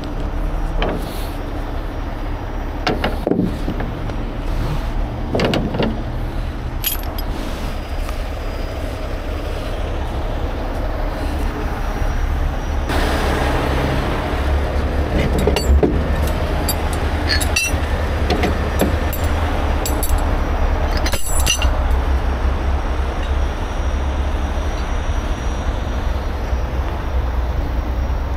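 Heavy rotator tow trucks' diesel engines running steadily, with scattered clinks and knocks of recovery chain being handled. A rushing hiss joins about halfway.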